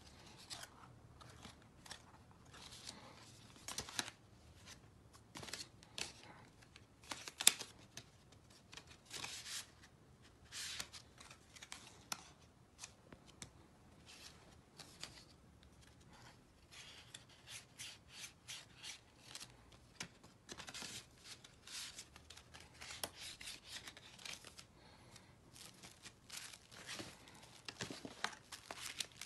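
Black cardstock being folded and handled on a table: irregular rustling and scraping with short sharp paper snaps and taps, one much louder snap about seven seconds in.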